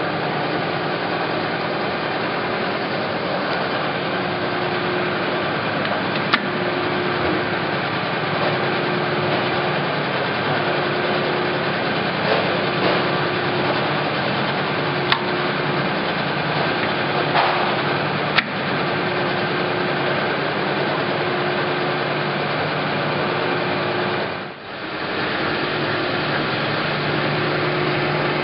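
Harrison M300 engine lathe running steadily under its 3-horsepower motor, a continuous mechanical drone with a pitched whine that comes and goes every second or two. A few sharp clicks stand out, and the sound dips briefly about 24 seconds in.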